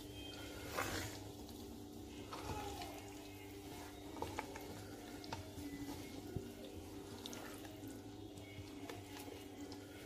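Pot of palm-oil tomato stew with beans simmering and bubbling, with scattered small pops and a wooden spoon stirring through it, over a steady low hum.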